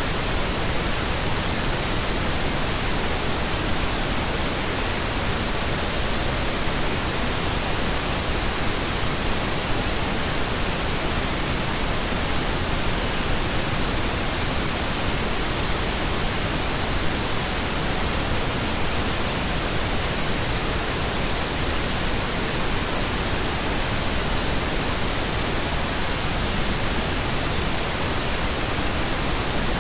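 Steady synthetic pink noise: an even, unbroken hiss spread across all pitches, holding one level throughout.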